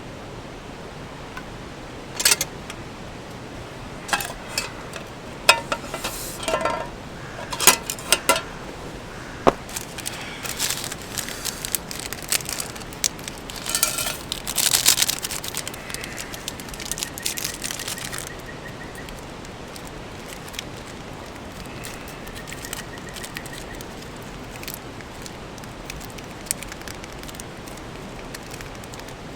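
Clinks and clatter of metal camp cookware being handled, some strikes briefly ringing, over a steady rushing background; the clatter dies away after about eighteen seconds.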